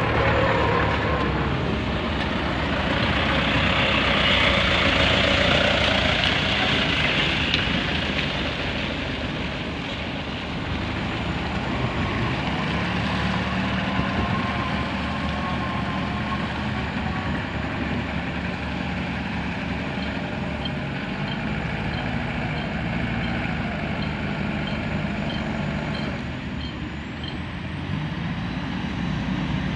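Heavy diesel construction machinery running steadily, with a hiss lasting a few seconds near the start and a faint, regular high beeping in the latter part.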